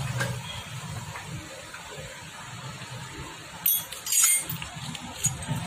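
Two sharp metallic clinks a little past the middle: metal parts or tools knocking together during work on a motorcycle engine opened on its clutch side.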